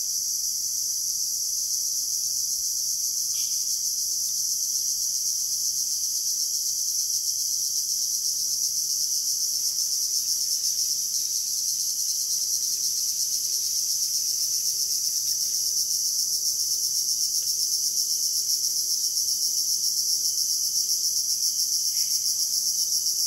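A dense chorus of insects trilling steadily at a high pitch, a fast unbroken buzz that does not let up. A faint low steady hum runs underneath.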